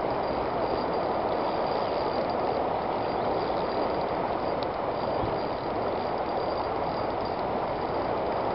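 Steady rush of a small creek's water flowing past, an even noise with no break.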